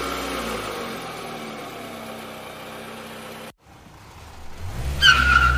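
Car engine idling just after being started with the key, then cutting off abruptly about three and a half seconds in. A car engine then revs up, with a short tire squeal near the end.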